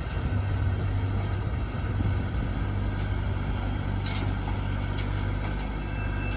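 Kubota combine harvester's diesel engine running steadily with a constant hum, with a few light clicks or rattles about four seconds in.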